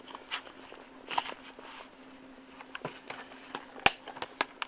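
Plastic clicks and taps of a DVD snap case being handled as its parts are pressed to snap together, with one sharp click about four seconds in.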